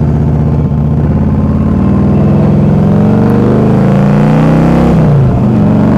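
Harley-Davidson Street Glide's V-twin engine under way, heard through a helmet microphone. Its note holds steady, then climbs in pitch as the bike accelerates, and dips briefly near five seconds in at a gear change before pulling on.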